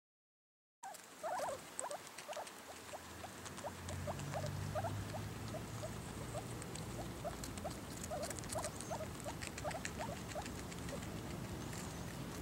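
Young guinea pigs eating a cucumber: crisp crunching and nibbling clicks, with short rising squeaks repeating two or three times a second, starting about a second in.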